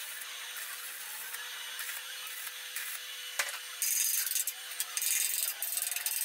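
Stick-welding arc crackling and hissing steadily on steel. About four seconds in it gives way to louder, irregular rough scraping strokes as slag is cleaned off the fresh weld.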